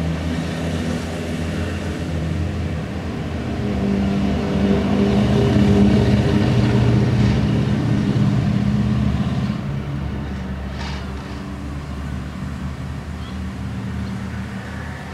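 Electric railcar rolling slowly toward the station, a low motor hum with wheels rumbling on the rails that swells in the middle and then eases off. A couple of short sharp noises come in the second half.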